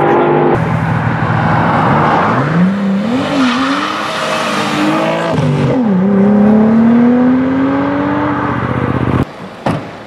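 Audi estate car accelerating hard away, its engine note climbing through the gears with two upshifts where the pitch drops before rising again. The engine sound stops abruptly near the end, leaving a few sharp knocks.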